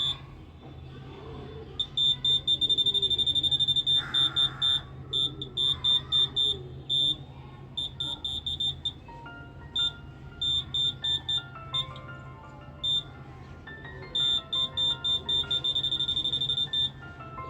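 Handheld metal detector's buzzer beeping at one high pitch as it picks up metal, in irregular single beeps and fast runs of beeps, the longest runs about 2 to 4 seconds in and near the end. Electronic music plays underneath.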